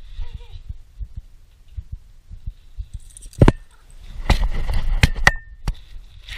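Dull thumps and rubbing on a camera worn by a Boston Terrier as it moves. From about four seconds in, plastic bubble wrap crinkles, with a few sharp snaps; the loudest single snap comes just before.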